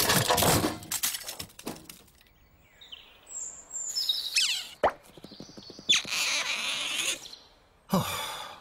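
Cartoon sound effects for a night forest. Music fades out at the start, then come scattered quick taps and plops, high chirps and falling whistles like night birds about halfway through, and two bursts of hissing noise near the end.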